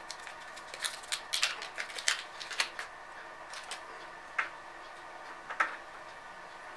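Faint, irregular clicks and crinkles of hands handling small objects. They come thickly over the first three seconds, then only a few scattered ones.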